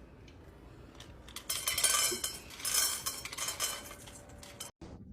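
Rapid clinking and clattering of small hard objects, loudest from about a second and a half to three seconds in, cutting off abruptly near the end.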